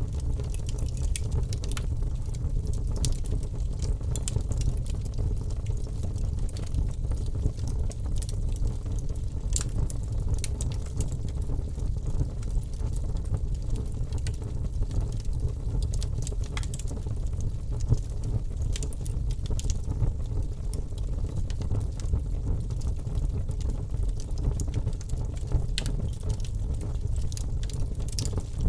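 Wood fire in a fireplace crackling, with irregular sharp pops and snaps over a steady low rumble of the burning fire.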